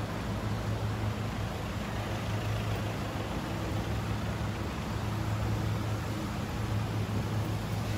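Street traffic noise with a steady low engine hum, like a vehicle idling close by.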